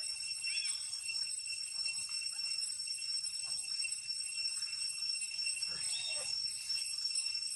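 Steady, shrill insect drone held on a few high pitches, with a couple of faint short chirps about half a second in and again near six seconds.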